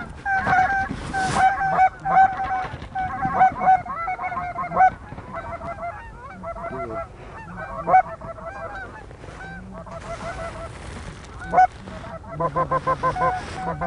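Hunters blowing goose calls, a busy stream of honks that ends in a quick run of clucks, mixed with geese honking in the flock overhead.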